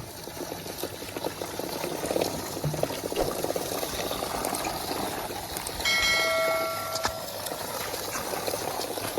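A steady patter of small crackles and ticks, with a single bell-like chime about six seconds in that rings for about a second.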